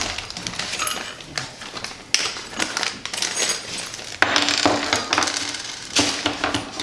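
Small hose fittings and clamps being handled and unpacked: irregular clicks, rustles and light metallic clinks.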